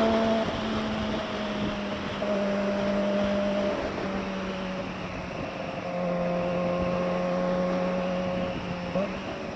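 Kawasaki ZX-25R's 250 cc inline-four running through an SC-Project slip-on muffler at fairly low, near-steady rpm, its pitch stepping slightly down and up a few times. It has a high, screaming exhaust note even at low rpm.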